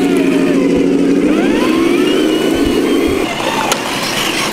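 Scale RC crawler truck running on the trail: a steady engine-like drone with a rising whine over it, dropping away about three seconds in.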